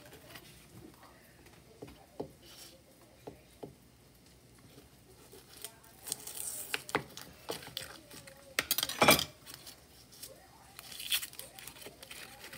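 Scattered light clinks and knocks of kitchen dishes and utensils, with a louder burst of noise about nine seconds in.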